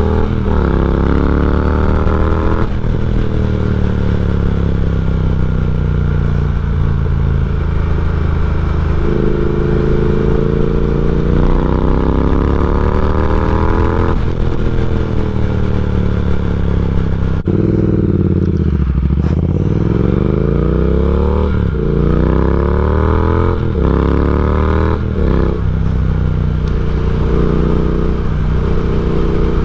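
Triumph Speed Twin's 1200 cc parallel-twin engine through a decat X-pipe and slip-on exhausts, under way: revs climb and fall with gear changes. About halfway through the revs drop off sharply, then it pulls hard again through several quick upshifts before settling to a steady cruise near the end.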